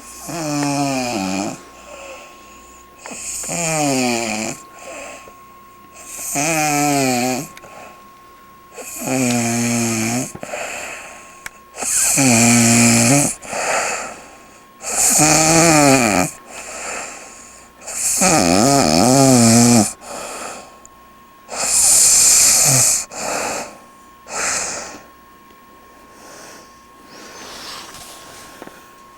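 A sleeping woman snoring, about eight loud snores roughly every three seconds. Each is a drawn-out note sliding down in pitch, followed by a shorter puff of breath. The snores weaken and die away near the end.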